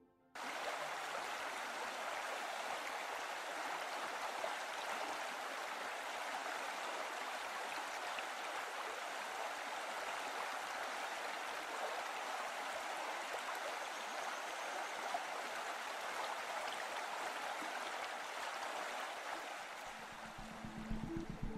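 A river running over rocks: a steady rush of flowing water that cuts in suddenly just after the start and fades near the end as music comes in.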